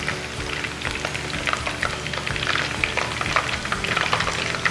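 Starch-coated chicken pieces deep-frying in hot oil, crackling and bubbling steadily as they are turned with chopsticks and lifted out with a skimmer. The pieces have browned and are done with this frying.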